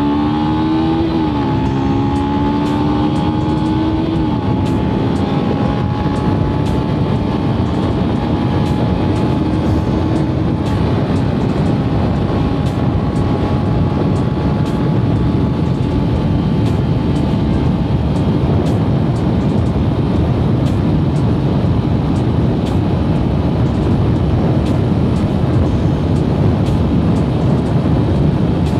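Yamaha Sniper 150 underbone's single-cylinder engine at full throttle: the revs climb, drop at an upshift about a second in, climb again for a few seconds, then hold high and rise slowly in fifth gear near top speed. Heavy wind rush covers the engine at around 120 km/h.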